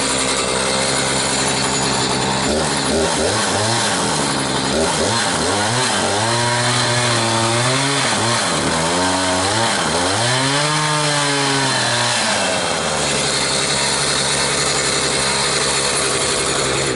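Echo CS-590 Timberwolf two-stroke chainsaw running. From about three seconds in until about twelve seconds in, it cuts into a log, its engine pitch dipping and recovering again and again under the load. Before and after the cut it runs at a steady pitch.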